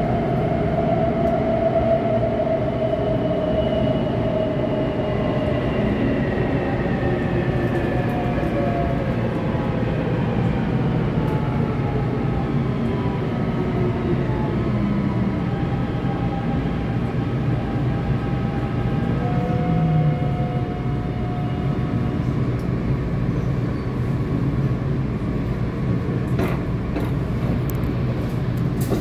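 Taipei Metro C321 train's GTO-VVVF inverter and traction motors whining over the steady rumble of the car, heard from inside. Several whine tones slide down in pitch as the train brakes into a station, and a few sharp clicks come near the end as it draws to a stop.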